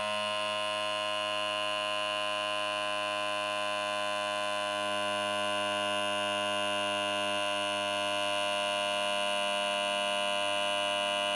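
Electric tyre inflator running steadily with an even, buzzing hum, pumping air into an Inmotion V12 electric unicycle's knobby tyre to bring it up to about 42 PSI.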